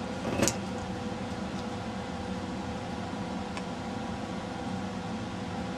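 Steady mechanical hum with a constant tone, like a small fan or motor running, with a light click about half a second in and a faint tick later.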